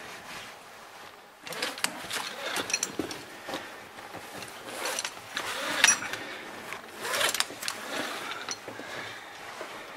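Caver's rope-climbing gear at work: irregular scraping and rustling of rope, harness and suit, with metal clicks from the handle ascender moving on the rope. It starts about a second and a half in, and the sharpest click comes about six seconds in.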